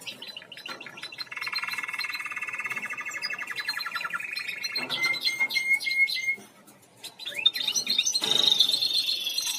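Canary singing: a long, rapid rolling trill, then a few short repeated notes, a brief pause, and a higher twittering run of song.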